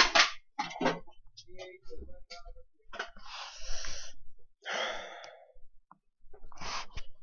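A person breathing hard: a few scattered small clicks and knocks, then three heavy, breathy gasps or exhalations spread over the last few seconds.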